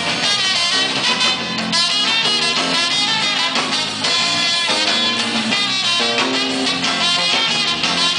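Live samba-rock band playing an instrumental passage between sung verses, with guitar and a horn section over a steady groove.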